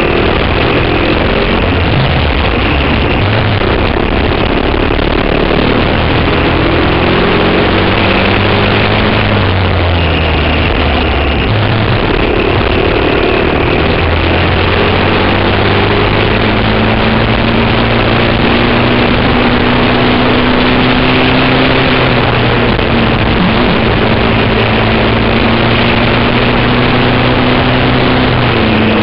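Briggs & Stratton Animal single-cylinder four-stroke kart engine at full race pace, heard onboard. Its pitch climbs slowly as the kart accelerates, then drops off about eleven seconds in and again near the end as it slows for corners.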